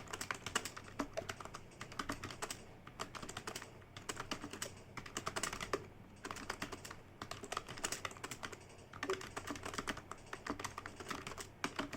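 Fast typing on a computer keyboard: rapid runs of key clicks in bursts of a second or two, with short pauses between words.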